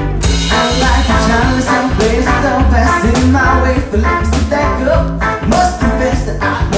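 Live music: a man singing and strumming a hollow-body archtop electric guitar over a steady drum beat.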